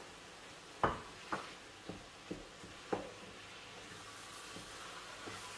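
A spoon knocks against a frying pan about five times while spinach is stirred into frying vegetables, the loudest knock about a second in, with a faint sizzle from the pan that grows slightly near the end.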